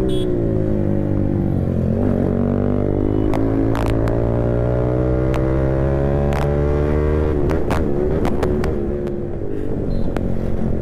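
Yamaha R15 V4's single-cylinder engine breathing through an aftermarket full-system exhaust under riding: the pitch eases off briefly, then climbs steadily for about five seconds as the bike accelerates in gear, drops sharply at a gear change and settles. A few short sharp clicks sound over it.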